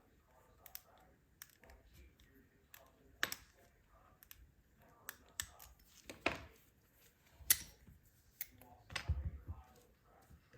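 Quiet, irregular metallic clicks and scraping of lock picks working the pin tumbler cylinder of a Master Lock No. 1 padlock, with a few sharper clicks about three, six and seven and a half seconds in.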